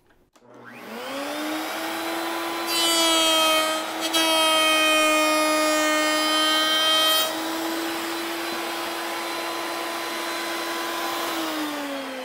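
Table-mounted router switched on, its motor whining up to speed, then a board edge fed past the spinning bit for about four seconds, louder and harsher while the bit cuts. This is a light cleanup pass along a routed profile that removes a burn mark. Near the end the router is switched off and its pitch falls as it winds down.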